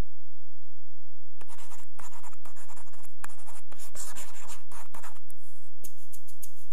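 Marker pen writing, a quick series of short scratchy strokes as letters are drawn, starting about a second and a half in, over a steady low hum.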